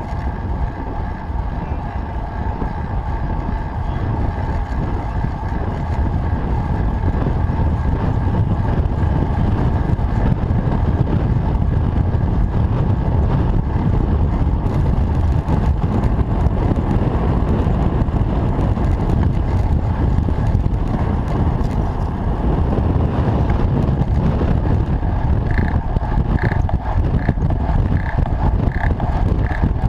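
Wind and road noise on the microphone of a camera mounted on a moving road bike: a loud, steady low rumble.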